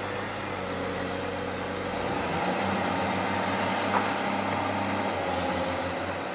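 An engine runs steadily, its tone shifting about two seconds in, with a single short click about four seconds in.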